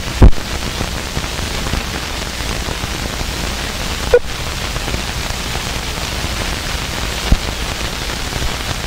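Steady hiss with a low hum from an old film's optical soundtrack running through the countdown leader, broken by three sharp pops: just after the start, about four seconds in, and a little past seven seconds.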